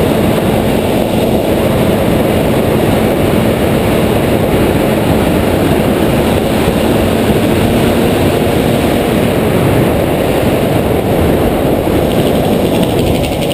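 Steady rush of wind buffeting the microphone of a camera riding on a mountain bike rolling fast downhill on tarmac. A fine, fast ticking joins in near the end.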